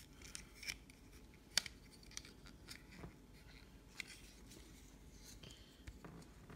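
Faint, irregular clicks and light scraping of hard plastic parts as a Transformers Dinobot action figure is handled and its pieces are pegged together, with one sharper click about a second and a half in.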